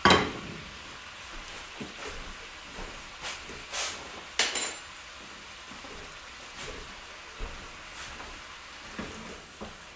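Steak bites in butter sauce sizzling in a pan on the stove burner: a steady soft sizzle, with a few short clicks and knocks, the sharpest right at the start and about four seconds in.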